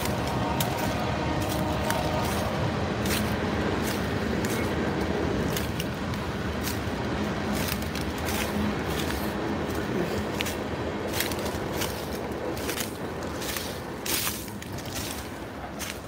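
A passing train rumbling steadily, with a few held tones early on, dying away over the last few seconds. Sharp crackling clicks, like steps in dry undergrowth, grow more frequent near the end.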